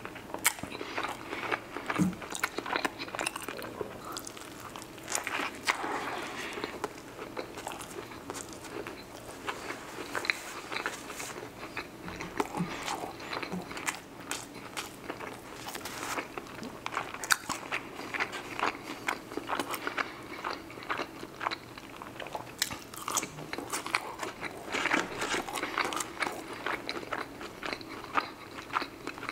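Close-miked chewing and biting of fried chicken and fries, a steady run of small crunches and mouth clicks.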